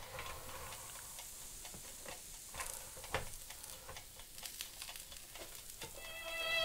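Faint sizzling from a pizza slice on the hot ribbed plates of a contact grill, with scattered soft clicks and taps as the slice is pulled off the upper plate by hand. Music comes in near the end.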